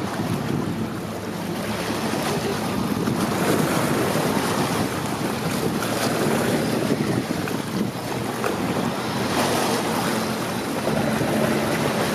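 Wind buffeting the microphone over the steady wash of waves.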